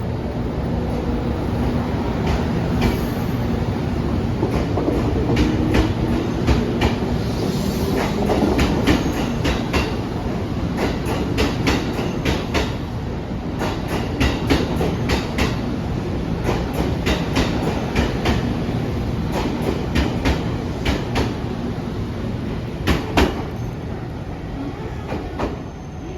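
JR Kyushu 787 series electric train pulling out, its wheels clicking sharply and irregularly over rail joints and points above a steady running noise.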